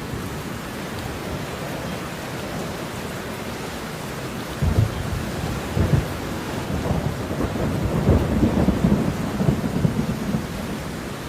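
Steady rain falling, with thunder rumbling in about halfway through: two short low surges, then a longer rolling rumble.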